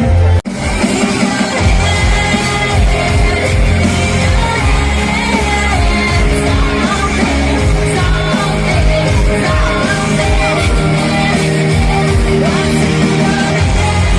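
Live band playing a rock cover song with a singer, loud over a concert PA. The sound drops out sharply for a moment about half a second in.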